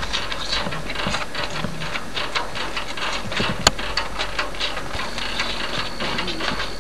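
Hereford calf sucking hard on the nipple of a plastic nursing bottle: rapid, irregular wet clicks and smacks, with one sharper click about three and a half seconds in.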